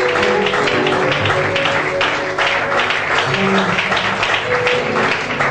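Church praise music: a band plays a steady beat with held notes, and the congregation claps along in rhythm.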